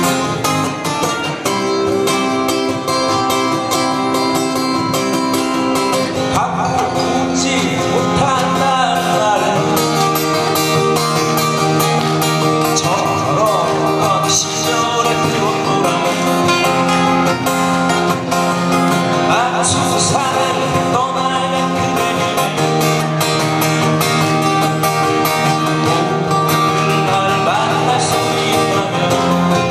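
Several acoustic guitars playing a song together: strummed chords with a melody line gliding above them at times.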